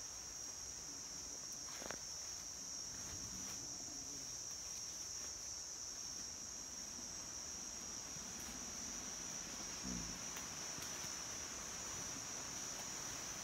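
Steady high-pitched drone of insects in the forest, unbroken throughout, with a couple of faint brief knocks.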